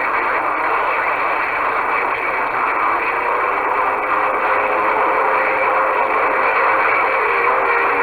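CB radio receiver putting out a steady rushing hiss of band static, with faint steady whistles of other signals coming in about three seconds in.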